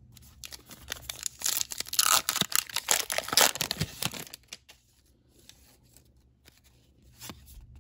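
A Topps Heritage baseball card pack being torn open by hand, the wrapper crinkling and ripping for about four seconds. After that come quieter rustles and ticks from handling the cards.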